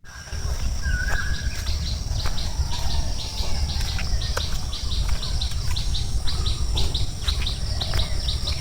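Birds chirping at dawn: a steady run of short, high, falling notes, about three a second, with one lower call about a second in. A steady high insect tone and a low rumble lie underneath.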